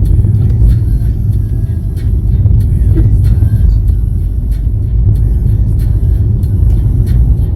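Steady low rumble of a vehicle driving in road traffic, engine and road noise, with scattered light clicks and knocks.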